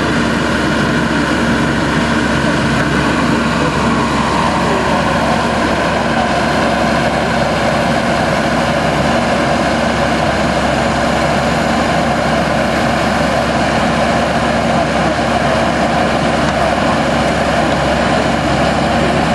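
Forestry forwarder's diesel engine running steadily while its hydraulic crane and grapple are worked, the machine's noise growing a little stronger about five seconds in.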